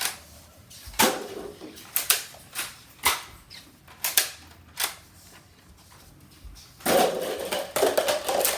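Toy Nerf blaster being primed and fired: a string of sharp clicks and pops, irregular and roughly half a second to a second apart, then a quicker run of clicks and rattling near the end.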